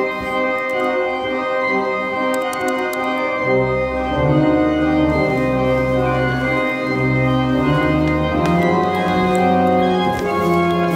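Church organ playing slow, held chords, with deep bass notes coming in about three and a half seconds in.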